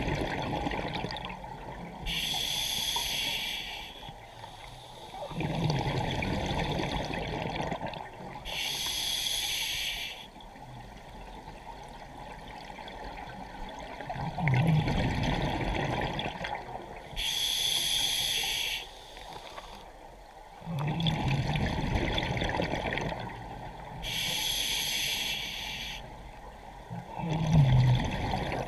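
Scuba diver breathing through a regulator underwater: slow breaths about every six to seven seconds, each a hissing inhale through the demand valve followed by a low rush of exhaled bubbles from the exhaust.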